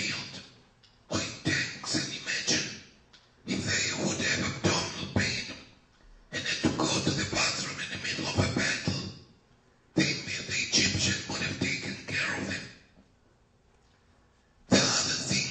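Speech: a voice talking in phrases of two to three seconds, with short pauses between them.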